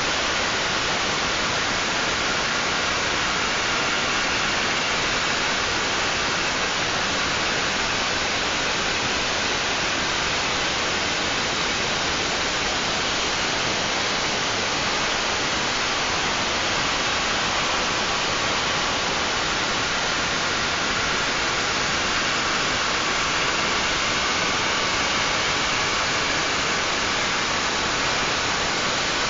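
CNC milling machine running: a steady, even rushing noise with faint high tones held over it.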